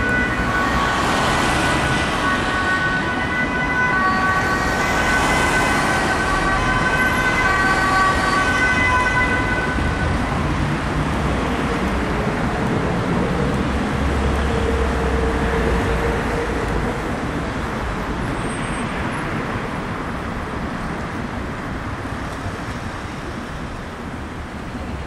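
Ambulance two-tone siren switching back and forth between two steady pitches, fading out about ten seconds in. City traffic noise and engine rumble remain.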